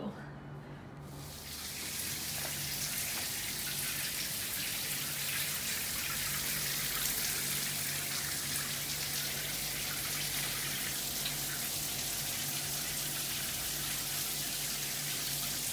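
Overhead shower running, water spraying steadily onto a stone-tiled floor, coming on about a second in. A low steady hum sits underneath.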